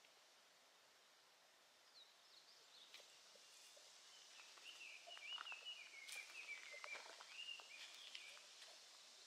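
Faint song of a small bird: scattered chirps, then a quick warbling run of short notes lasting a few seconds, over quiet outdoor hiss.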